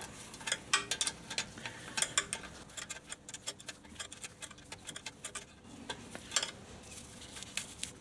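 Socket wrench with an 8 mm socket undoing the bolts of a Suzuki DR650's stock oil cooler guard: a run of quick, irregular metallic clicks and ticks.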